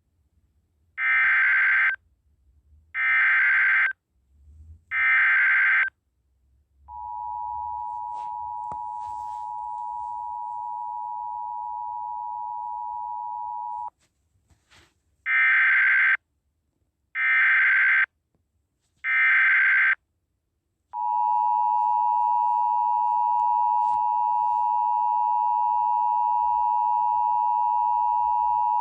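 Emergency Alert System tones for a tornado warning. Three one-second bursts of SAME digital header data come about a second apart, followed by the two-tone attention signal held for about seven seconds. Then the three data bursts and the two-tone attention signal come a second time, the tones now with fainter higher tones over them.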